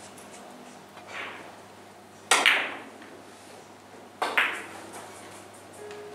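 Carom billiard balls clicking sharply as a shot is played: a soft click about a second in, then two quick double clicks about two seconds apart, each a cue-tip strike or a ball hitting another ball.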